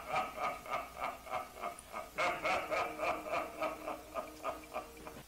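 A man laughing hard in rapid, rhythmic 'ha' bursts, about four a second, breaking off briefly about two seconds in, then starting again and tapering off near the end.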